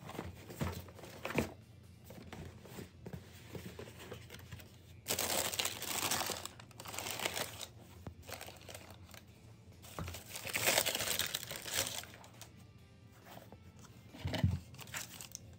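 Tissue paper inside a sneaker box crinkling and rustling as it is handled, louder in two longer bursts, with a few light knocks of the cardboard box. The audio is sped up.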